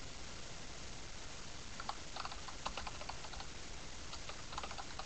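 Typing on a computer keyboard: a run of quick key clicks about two seconds in and another short run near the end, over a steady background hiss.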